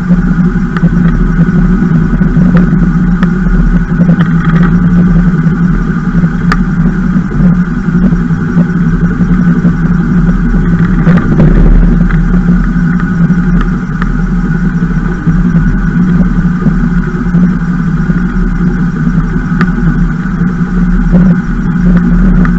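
Gyroglider moving along the ground with its rotor turning: a loud, steady drone with a constant hum and rushing noise that holds the same pitch throughout.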